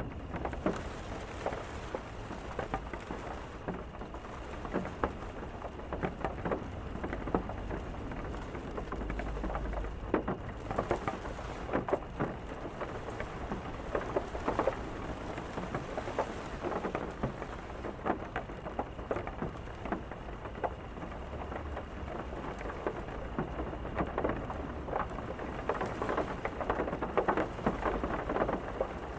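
Steady rain with many irregular, close drop strikes pattering on a hard surface, and a low rumble now and then.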